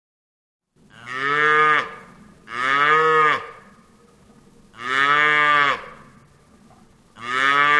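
Cow mooing four times, beginning about a second in, each moo about a second long, rising and then falling in pitch.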